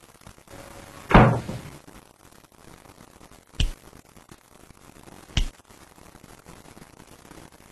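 Three knocks or thuds: a loud, heavy thump about a second in, then two shorter, sharper knocks about two seconds apart.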